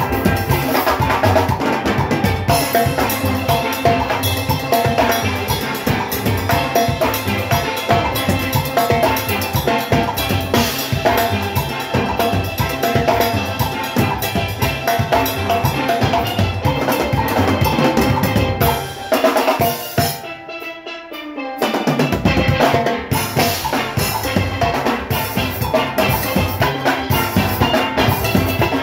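Steel orchestra playing live: steel pans over an engine room of drum kit and metal percussion, in a steady driving rhythm. About two-thirds of the way through, the drums and bass drop out for a couple of seconds, leaving the pans quieter on their own, before the full band comes back in.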